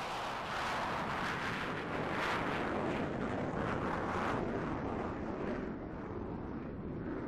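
Jet engine roar from a NASA F/A-18 climbing away after takeoff, a steady rushing noise with a crackly edge. The high hiss thins out over the last couple of seconds as the jet pulls away.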